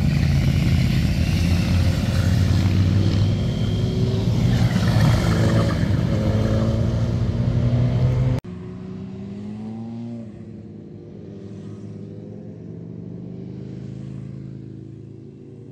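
Several motorcycle engines passing close through a hairpin bend, running and revving as they accelerate. About eight seconds in the sound cuts suddenly to a quieter, more distant engine that rises and falls in pitch and fades away near the end.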